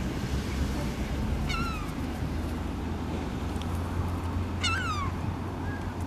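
Gulls calling: two short calls, each falling in pitch, about three seconds apart.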